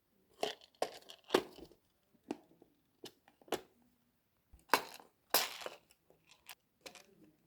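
Handling noise while working on a computer build: a run of short crackles, scrapes and knocks, about a dozen, the loudest about a second in and again around the middle, like packaging or parts being moved about.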